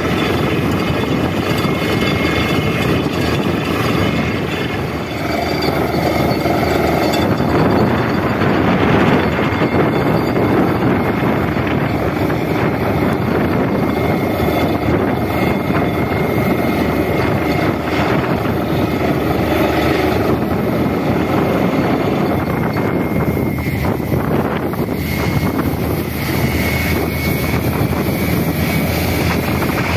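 Truck-mounted borewell drilling rig running steadily under load, with compressed air blowing water and rock cuttings out of the bore in a continuous rushing spray; the water shows the well has struck water at depth.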